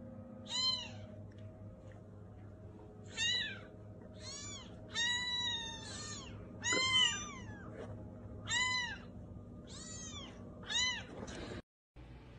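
Two young kittens mewing: about ten short, high-pitched mews, some coming in quick pairs, over a faint steady background hum.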